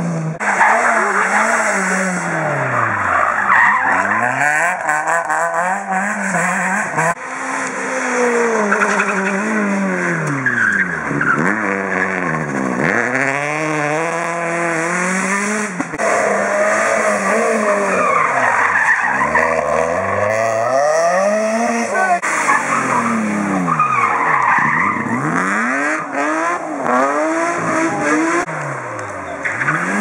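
Rally car engines revving hard as the cars pass one after another, the engine note repeatedly dropping and climbing again every couple of seconds through braking, gear changes and acceleration, with tyre squeal.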